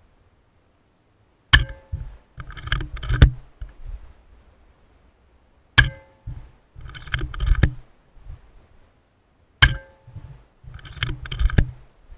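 Air rifle shooting three times, about four seconds apart. Each sharp shot is followed about a second later by a quick run of metallic clicks and clacks from the bolt being cycled to load the next pellet.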